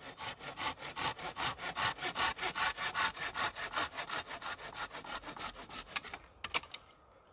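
Hand saw cutting through wood with quick, even back-and-forth strokes that stop about six seconds in, followed by a couple of short separate rasps.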